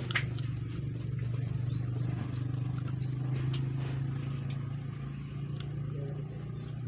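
A steady low engine hum, louder in the middle and easing off toward the end, with a short click just after it begins.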